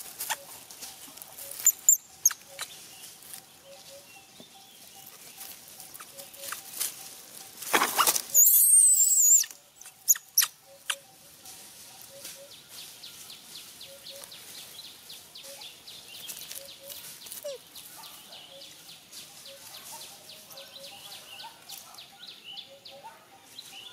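Macaques shifting about on dry fallen leaves: scattered rustles and crackling clicks, with a loud noisy burst about eight seconds in that lasts over a second.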